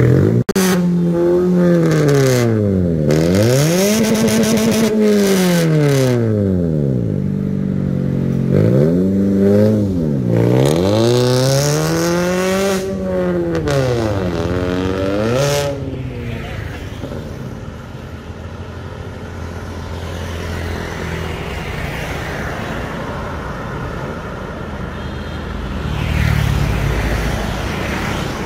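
Toyota Corolla Altis four-cylinder engine revved up and dropped back to idle about six times through a twin-tip aftermarket Akrapovic valved exhaust. Steadier road traffic follows, with a vehicle passing near the end.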